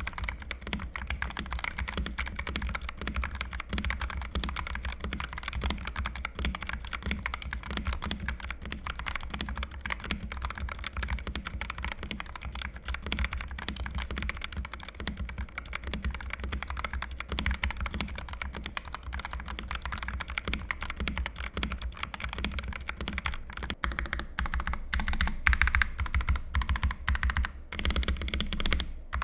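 NYK Nemesis Loki MKN-10 mechanical keyboard with XDA-profile keycaps, typed on steadily and quickly in a sound test. It has a clacky sound with a fairly loud clack on each keystroke.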